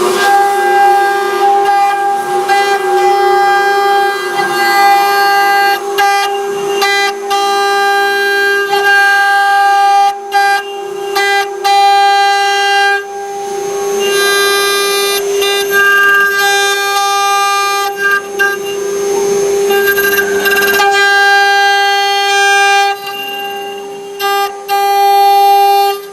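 3.0 kW water-cooled CNC router spindle running at speed with a steady high whine, its tone shifting and briefly breaking up several times as the cutter engraves.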